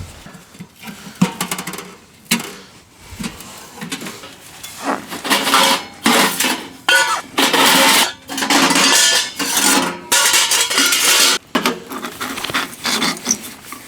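Metal clanking and scraping as a tent wood stove and its pipe are handled and fitted. There are scattered clicks at first, then a run of louder scraping, rattling bursts from about five seconds in.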